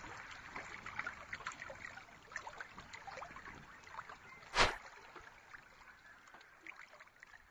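Faint trickling, water-like noise with scattered small ticks, thinning out over the last few seconds. A single short, loud burst of noise comes about four and a half seconds in.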